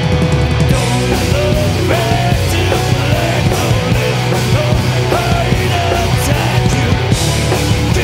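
Live heavy metal band playing loud, with electric guitar and drums, the cymbals crashing steadily through it.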